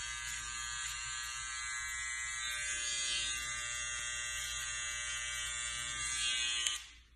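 Cordless hair trimmer buzzing steadily as its blade runs over the scalp, etching detail into a short haircut. The buzz cuts off abruptly near the end.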